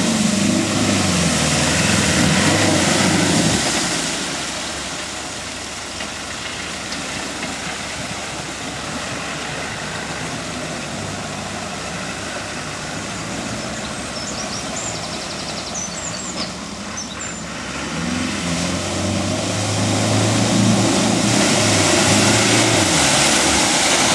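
First-generation Land Rover Discovery engine running as the 4x4 drives through deep mud and water, with the wheels churning and splashing. It is louder at the start and again over the last several seconds, and quieter in between.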